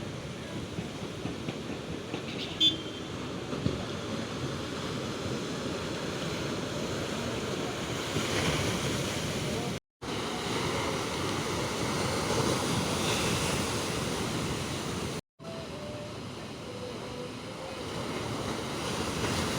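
Sea waves breaking and washing on a rocky shore, a steady rushing surf that swells and eases, with wind buffeting the microphone. A brief, sharp high sound stands out about three seconds in.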